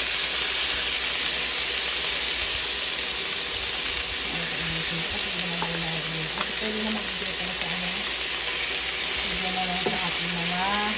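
Raw chicken pieces sizzling in hot oil in a pan with lemongrass and ginger, being browned before simmering. A steady frying hiss, with a few light clicks as a wooden spatula stirs.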